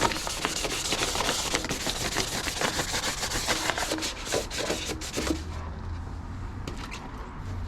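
Sandpaper rubbed by hand over the painted sheet metal of an engine bay in quick back-and-forth strokes, scuffing the old paint ahead of repainting. The strokes stop about five seconds in, leaving a low hum.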